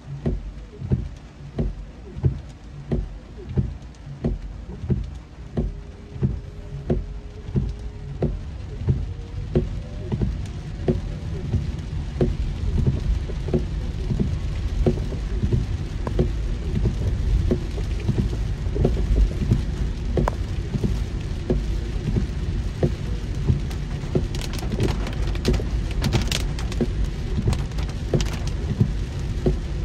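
Heavy rain on a moving car, over the low rumble of the car on the road. Through the first twelve seconds there is a regular tick about twice a second; after that the rumble grows heavier and steadier, and sharp clicks cluster near the end.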